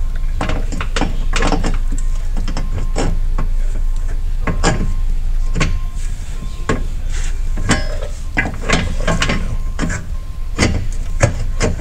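A rock slider being worked onto its mounting bolts along the side of a UTV: a string of irregular knocks, clunks and scrapes as it is shifted and lined up, over a steady low hum.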